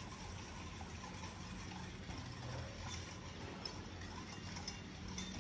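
Wire whisk stirring a thin mixture of cornstarch, sugar and milk in an enamelled pot, faint with a few light clinks of the wires against the pot, over a low steady hum.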